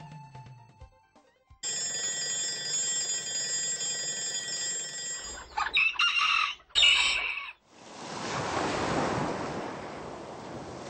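A run of sound effects: a steady electronic ringing for about four seconds, then two short, loud calls, then a steady hissing noise.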